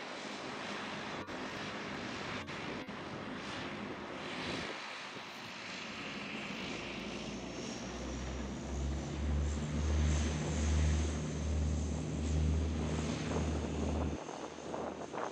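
Bombardier Dash 8-300 (Q300) twin turboprop taking off, its engines and propellers running with a steady broad roar. About halfway through, a louder low drone comes in, pulsing a little more than once a second, and its low part cuts off shortly before the end.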